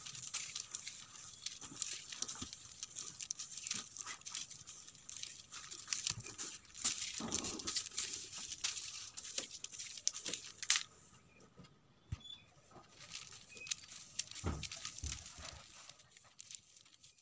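Soft grass broom sweeping dust across a floor: irregular brushing strokes of the bristles, fainter for a few seconds past the middle.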